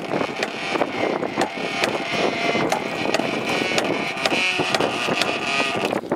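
Mast winch on a sailing yacht being cranked with a winch handle, its ratchet giving a run of sharp clicks, over wind noise on the microphone.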